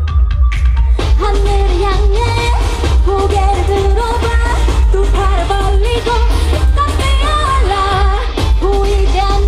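A K-pop girl group song: female vocals over a pop beat with heavy bass. The sung melody comes back in about a second in, after a short thinner stretch.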